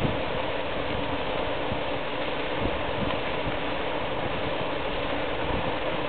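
A motor running steadily, a constant drone with a faint held tone in it.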